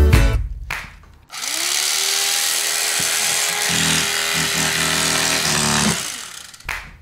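A power tool's electric motor spins up with a rising whine about a second in, runs steadily with a loud hiss for about four seconds, then winds down near the end.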